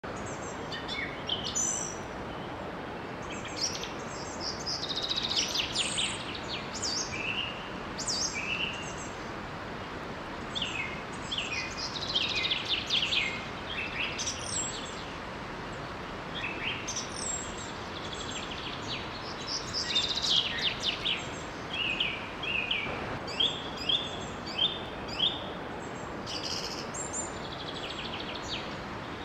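Birds chirping and singing in short, varied phrases over the steady rush of a small waterfall, with a run of louder, evenly spaced chirps a little after the middle.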